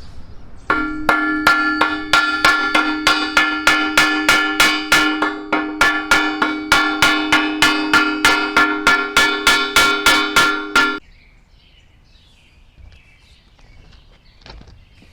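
Hammer blows on a steel workpiece, about three a second, the steel ringing between strikes; the hammering stops abruptly near the end.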